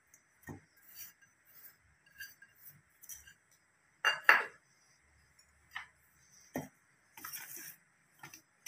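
Metal spoon clinking and tapping against a stainless steel bowl while dry wheat flour, rice flour and salt are stirred together. The taps are scattered, with a louder double clink about four seconds in.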